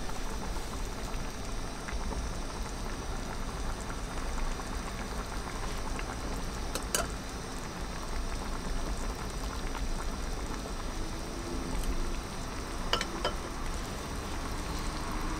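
Hot pot simmering in an earthenware donabe on a gas camping stove, bubbling steadily. A few sharp clicks come partway through, from chopsticks against the pot.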